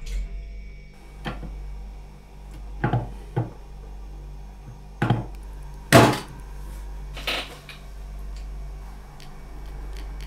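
Knocks and clunks of glasses and the tap at a kitchen sink, about six of them, the loudest about six seconds in, over a steady low hum. No water runs from the tap, which gives nothing when turned.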